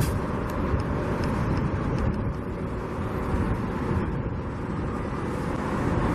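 Steady rush of freeway traffic mixed with wind buffeting the microphone.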